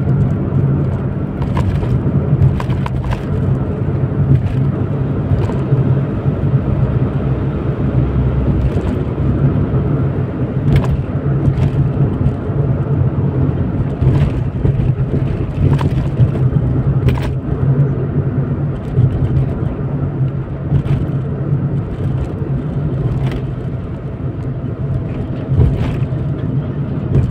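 Small car driving, with the steady rumble of engine and road noise from a Suzuki Alto and scattered light clicks and knocks.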